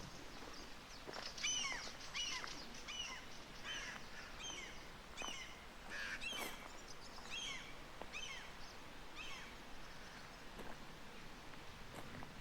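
A songbird singing a run of short, high, downward-sweeping chirps, a little over one a second, stopping a few seconds before the end.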